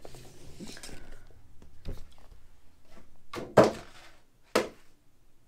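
Cardboard microphone boxes being handled and set down on a table: soft rustling, then two solid thunks about a second apart, a little past halfway.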